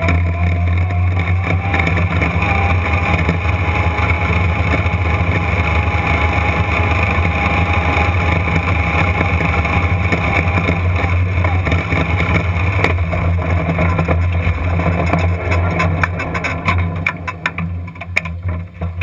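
Dirt-track race car engine heard from inside the cockpit, running steadily at low speed while the car rolls through the pits, then falling away and going quiet at the very end as it is shut off.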